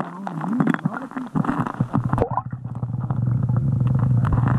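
A small engine starts running steadily about two seconds in: a low hum with rapid ticking, after irregular knocks and clicks.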